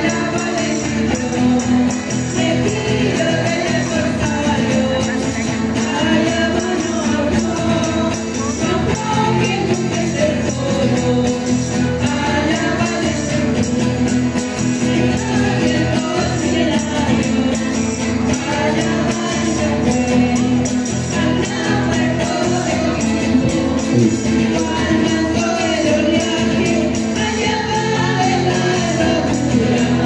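Chilean cueca music playing steadily, with voices singing over a quick rhythmic beat.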